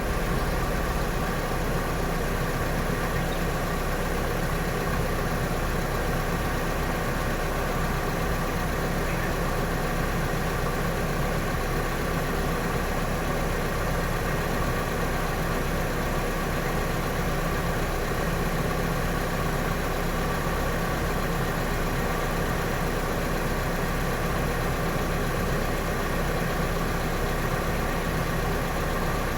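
Car engine idling steadily with the air conditioning running.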